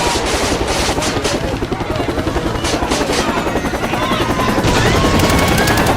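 Sci-fi war sound effect: a dense, rapid low pulsing like helicopter rotors and machine-gun fire, with bursts of hiss. Short gliding whistle-like tones come in from about four seconds in.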